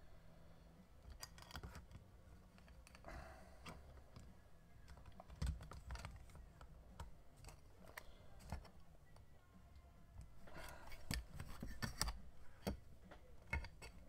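Soft, scattered clicks and light rustling of trading cards and hard plastic card holders being handled and set down, growing busier about ten seconds in.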